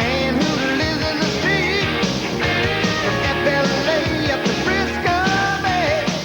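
Rock soundtrack music with a sung vocal line over guitar, bass and drums.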